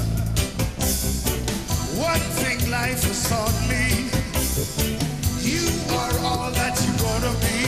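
Live reggae band playing: bass guitar, keyboards and drums, with a man singing lead over it in a wavering voice.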